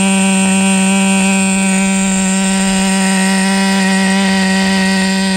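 OS 12 CVX two-stroke nitro glow engine running at a steady speed, a loud, unchanging buzzing note.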